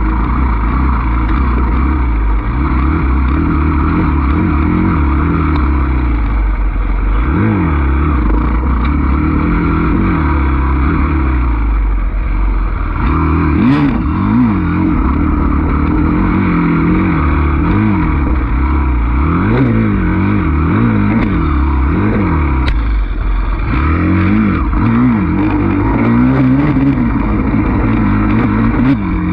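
Enduro dirt bike engine heard from on the bike, revving up and falling back over and over as the rider works the throttle through the corners of a tight trail. A few sharp knocks are heard over it.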